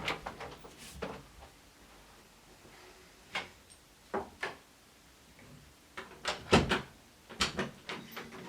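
A series of separate sharp clacks and knocks, irregularly spaced, with the loudest cluster about six and a half seconds in.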